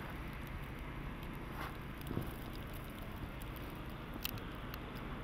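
Faint, steady low engine hum, with a few soft clicks about two seconds in and near four seconds.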